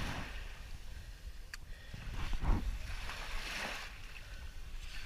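Wind buffeting the microphone over the wash of water at the shore, with swells of water noise about two and a half and three and a half seconds in and one faint click about a second and a half in.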